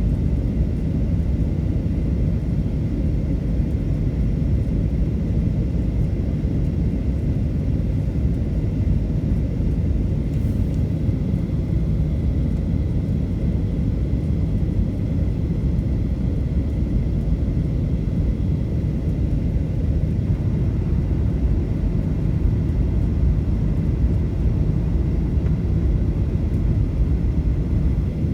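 Steady low rumble of a Boeing 737 cabin in flight: engine and airflow noise with a faint, even high whine.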